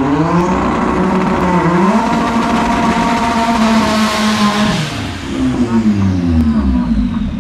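Compact import car's engine revving as it pulls away, climbing in pitch and dropping back about two seconds in, as at a gear change. It holds steady with a rising rush of noise, then falls away near the five-second mark and revs up and down once more.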